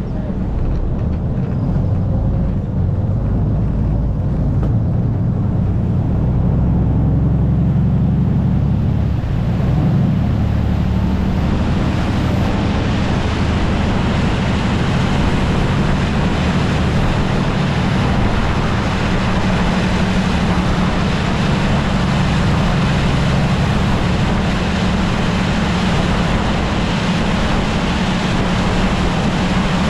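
Khlong Saen Saep canal boat's diesel engine running with a loud, steady low drone, heard from on board. About twelve seconds in, a broad rush of water and wind grows louder and carries on under the engine.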